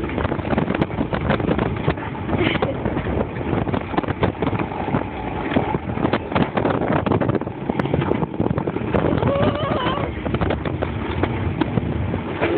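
Alpine coaster sled running down its steel rail track: a continuous rattle and rumble of the wheels on the rails, with many quick clicks and knocks, and a thin squeal coming in near the end.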